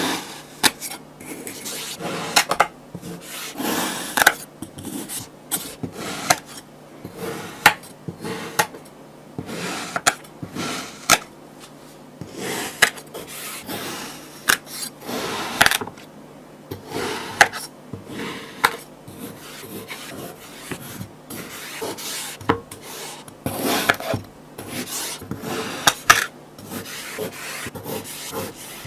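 Kinetic sand being cut and crumbled: irregular rubbing, rasping crunches with frequent short sharp clicks and crackles.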